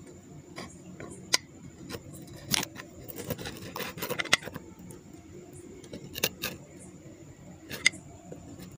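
Metal parts of an old gun clicking and tapping as they are handled and fitted into its wooden stock, with a handful of sharper clicks among softer handling sounds.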